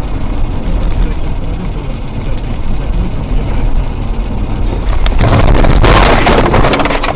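Car's engine and road noise heard from inside the cabin. About five seconds in, the car crashes into roadside trees: a loud burst of crunching and scraping with sharp knocks, lasting about two seconds.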